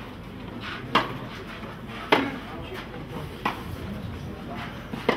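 Tennis rally on a clay court: racquets striking the ball back and forth, four sharp hits about a second apart. The second hit is the loudest.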